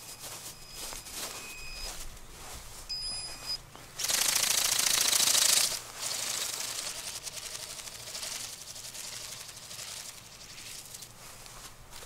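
Bionic Bird flapping-wing drone's wings beating as a rapid rattle. The rattle turns loud for under two seconds about four seconds in, then is fainter and fades as the bird flies away.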